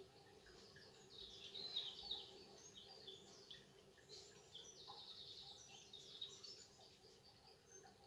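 Faint birdsong: small songbirds giving a run of short high chirps with a brief rapid trill, busiest in the middle.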